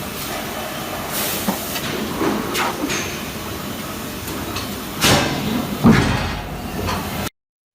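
Factory machinery running: a steady hiss with several sharp metallic knocks, the loudest about five and six seconds in. The sound cuts out abruptly near the end.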